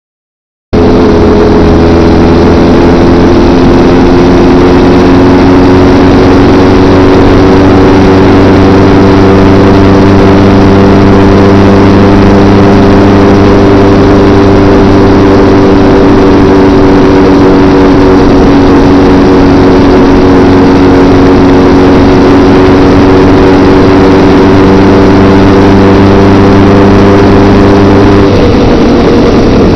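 Motorcycle engine running at a steady cruising speed, with heavy wind and road noise, loud on the bike-mounted camera's microphone. The engine note holds nearly level, then changes a couple of seconds before the end.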